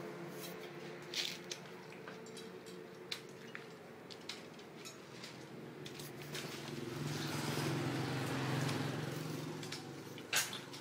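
Steady low machine hum with scattered clicks and knocks of metal parts and tools being handled. The hum swells about two-thirds of the way in, and a sharp knock comes near the end.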